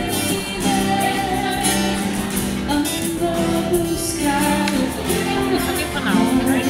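Background music with a singing voice carrying a melody of long held notes.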